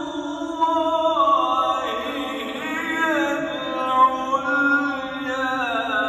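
Qur'an recitation (tilawah): a single voice chanting Arabic in long, melodic phrases, its pitch sliding and turning through ornaments, with a phrase closing near the end.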